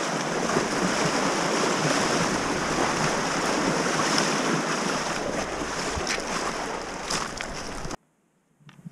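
Fast-flowing river water rushing and splashing close by as hikers wade across a braided alpine river, with a few sharp knocks near the end. The rushing cuts off suddenly about eight seconds in.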